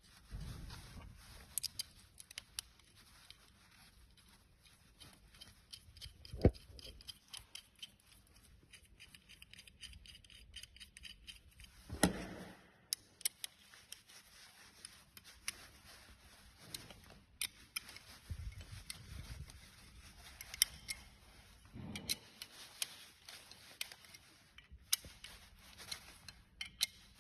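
Small metal parts and hand tools clicking, tapping and clinking as a racing-simulator brake pedal assembly is worked on, with a run of rapid clicks about ten seconds in and a few duller knocks.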